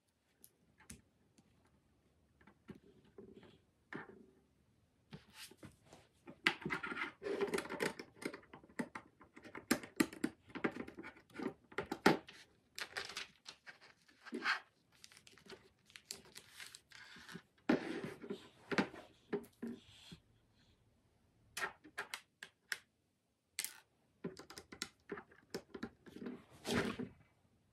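Plastic LEGO bricks clicking and clattering as they are picked from a loose pile and pressed onto a model, in irregular clusters of small clicks, with the rustle of the paper instruction booklet's pages.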